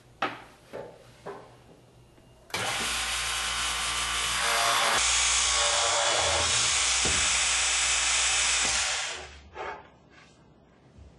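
GANNOMAT DB multi-spindle dowel boring machine running a boring cycle in a wooden cabinet side. The drill motor starts suddenly about two and a half seconds in, gets louder at about five seconds as the bits cut into the panel, and runs down after about nine seconds. A few light knocks of the panel being handled on the machine table come before and after.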